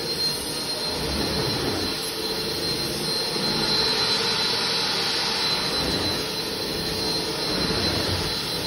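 Portable carpet extractor's vacuum (a Water Otter with an Air Hog vacuum booster) running steadily, sucking air through the floor wand on a dry pass over wet carpet. A steady rushing whine with a thin high tone.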